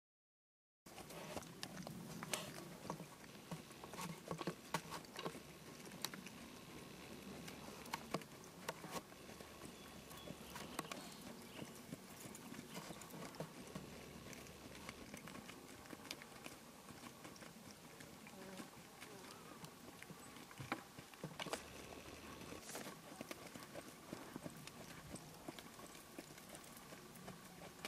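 Horse trotting on a dirt arena: hoofbeats knocking in an uneven run over a steady hiss, starting about a second in.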